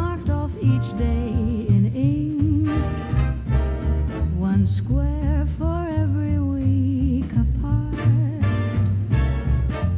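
Swing-style dance band music with a steady walking bass beat under a wavering melody line.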